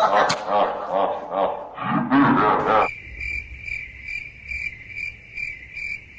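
A man's wordless vocalising for the first few seconds, then cricket chirping cuts in abruptly about three seconds in, pulsing evenly about twice a second: a comedic 'crickets' sound effect for an awkward silence.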